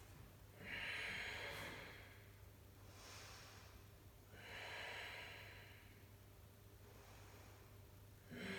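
A person breathing slowly and audibly while holding a yoga pose: long, hissing breaths roughly every three to four seconds, counting out the last breaths of the hold.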